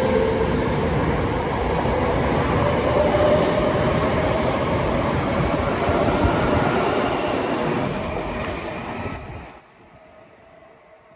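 Tokyo Metro 05 series subway train with a Toshiba IGBT VVVF inverter, pulling away: the inverter whine rises slowly in pitch over the running noise of the train. The sound drops away abruptly about nine and a half seconds in.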